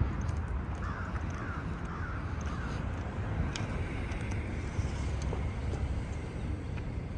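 A crow cawing, four short caws in quick succession starting about a second in, over a steady low rumble.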